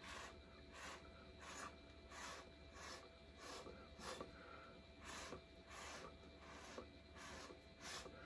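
Faint, short puffs of breath blown through a plastic drinking straw onto wet acrylic paint, repeating evenly about three times every two seconds.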